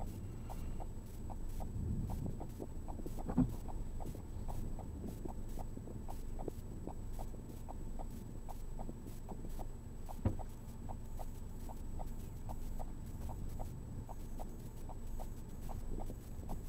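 Steady, even ticking, about three ticks a second, over a low rumble, with two louder knocks, one about three seconds in and one about ten seconds in.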